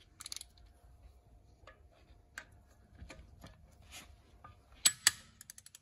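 Click-type torque wrench on a van's wheel bolt: scattered ticks as the socket and ratchet are worked onto the bolt, then a sharp loud click near the end as the wrench trips at its set torque of 150, the bolt fully tightened. A quick run of ratchet clicks follows.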